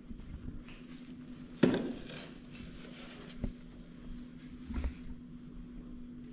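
Scattered light knocks and clinks from a baby's wooden cradle and its bedding being handled. A sharp knock about one and a half seconds in is the loudest, with smaller ones later. A faint steady hum runs underneath.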